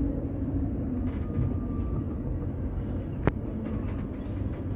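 Interior of a KTM-23 tram car on the move: a steady low rumble of the running tram, with a single sharp click about three seconds in.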